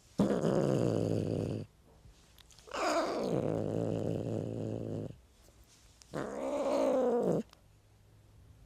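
A cat meowing three times in long, drawn-out calls, the middle one the longest, each bending up and down in pitch.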